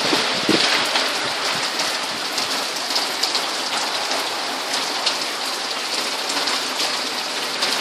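Heavy rain pouring down in a thunderstorm: a dense, steady hiss of drops hitting the ground and surfaces.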